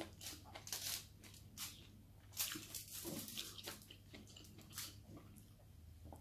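Faint, close-up eating sounds: a person chewing with mouth smacks while her fingers pick rice and fried milkfish off the plate, a string of short irregular clicks. A steady low hum lies under it.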